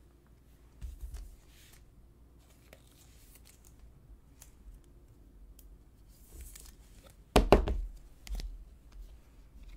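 Hands handling trading cards and plastic card sleeves on a table: faint rustles and light taps, a soft thump about a second in, and a sharp knock about seven and a half seconds in, followed by a few softer taps.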